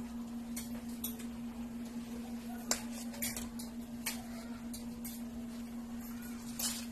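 Serving spoon and plastic plates and bowls clinking and scraping as food is dished out: a scatter of sharp, irregular clicks over a steady low hum.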